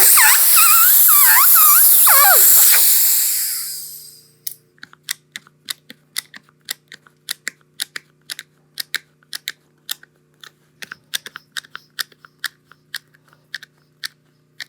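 Air hissing loudly out of an inflated Onewheel tire, with a wavering whistle, fading away over about four seconds as the tire deflates. It is followed by a run of irregular sharp clicks and taps, a few a second.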